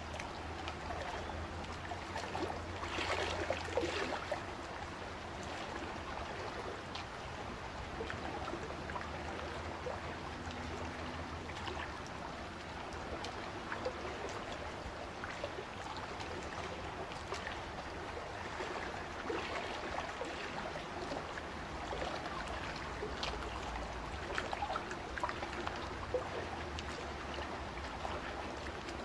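Small waves lapping on a sand and pebble shore: a steady wash of water with many small splashes and clicks, swelling briefly a few seconds in.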